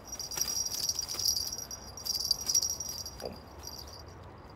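Insects trilling in steady high-pitched tones, swelling louder twice, with a few faint clicks.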